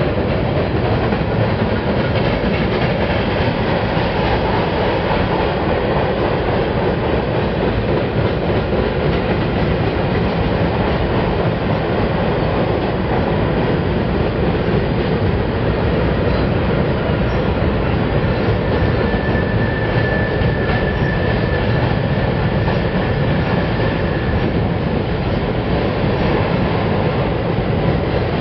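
Freight train rolling past with a steady rumble of wheels on rail, and a faint high wheel squeal for a few seconds about two-thirds of the way through.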